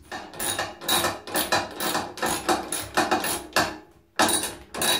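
Nuts and bolts being tightened with a hand wrench on the steel bed of a wood lathe: a run of quick metallic clicks, several a second, with a short break near the end.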